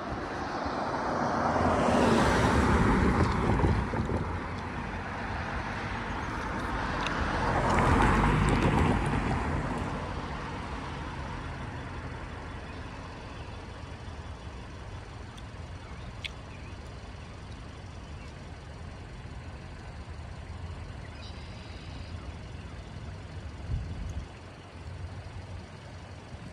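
Vehicles passing twice, each a rush of noise that swells and fades, followed by a steady low rumble.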